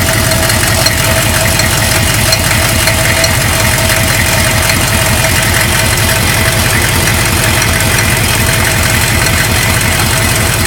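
GM 6.5-litre V8 diesel idling with open exhaust manifolds, a steady fast clatter with a thin steady tone running through it. A strange metallic sound heard only at idle is present, and the owner cannot place it.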